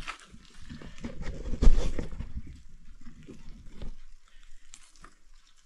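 Scuffling and grunting of people moving about, with one heavy knock a little under two seconds in.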